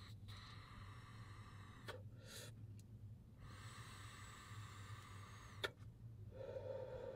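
Faint hiss of air being drawn through an electric dab straw whose heated tip is pressed into hash concentrate: a short draw about two seconds in, then a longer one that ends in a single click. A breathy exhale follows near the end.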